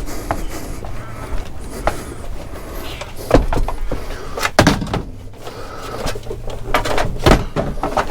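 Objects being handled and moved on a scrap pile: scraping with several clunks and knocks, the loudest about three and a half seconds in and a second later, over a steady low rumble.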